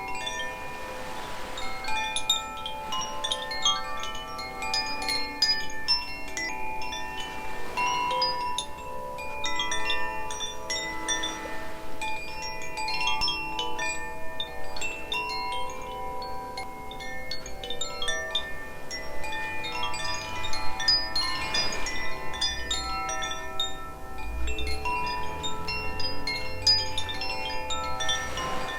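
Two Koshi chimes, Aria and Ignis, rung together. The tuned metal rods inside their bamboo tubes are struck by the clapper in frequent, irregular clusters, and the bell-like notes overlap and ring on.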